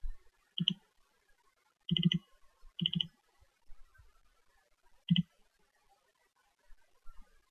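Computer mouse button clicks: a handful of short, sharp clicks a second or more apart, some in quick pairs like double-clicks, with quiet between.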